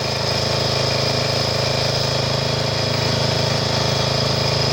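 Riding lawn mower's small engine running steadily.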